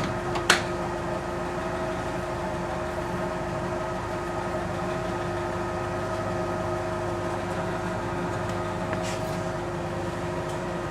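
Steady mechanical hum with several constant tones, broken by a sharp click about half a second in and a fainter one near the end.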